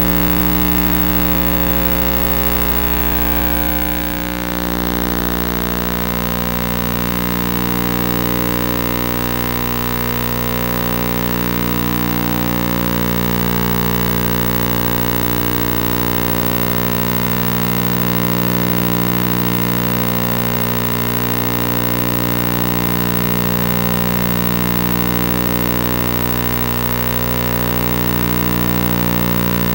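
A loud, steady drone made of many stacked tones, pulsing slowly.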